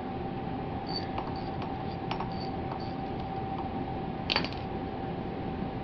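A 3/8-inch ratchet on an extension turning the square-drive fill plug of a rear differential: scattered light metallic clicks, then one sharper clink about four seconds in, over a steady hum.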